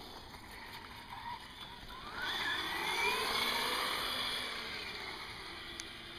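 Radio-controlled car's motor whining as it speeds up, its pitch climbing about two seconds in, then fading away as the car drives off.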